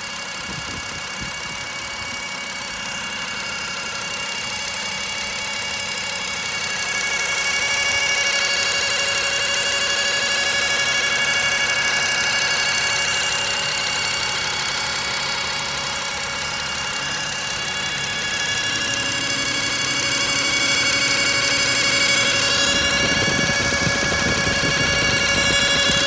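BMW N52 inline-six engine running warm with a steady high-pitched whine over the engine noise. The owner places it at the oil filter housing and rules out the pulleys and alternator; it is absent on a cold start and grows as the engine warms. The sound gets louder about seven seconds in and again near the end.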